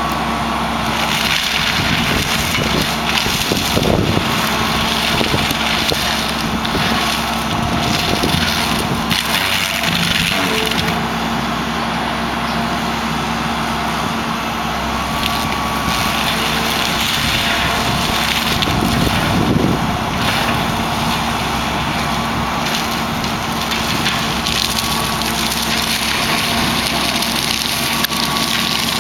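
John Deere 160D excavator's diesel engine running steadily while its AFE mulcher head grinds and splinters brush and wood, in several louder surges of crushing over the machine's constant drone.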